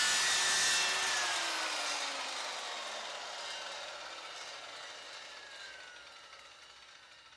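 Black & Decker 1400 W circular saw running, then switched off about a second in: the motor and blade coast down, their whine falling in pitch and fading away over several seconds.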